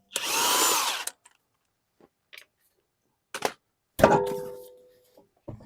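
A short whirring burst from a power tool lasting about a second, then a sharp metallic clank about four seconds in that rings and fades over about a second.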